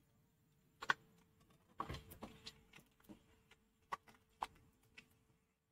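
Spatula tapping and scraping against a metal kadhai as whole spices are stirred into hot oil: a few scattered light knocks, the strongest about one and two seconds in, over a faint steady hum.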